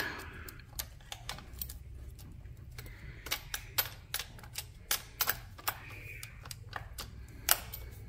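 Irregular small metallic clicks and taps as a throttle cable end and its retaining clip are worked by hand onto the throttle linkage of a 1974 Johnson 9.9 hp outboard that is not running, with one louder click near the end.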